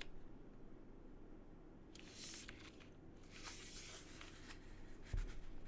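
Scattered keystrokes on a Neo80 mechanical keyboard with lubed and filmed Cherry MX Purple tactile switches, on a POM plate in O-ring mount with PBT keycaps. The keystrokes come as a few short flurries, with a low thump of a key bottoming out near the end.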